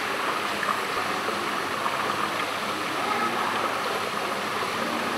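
Steady rush of running water in an indoor seawater fishing pond.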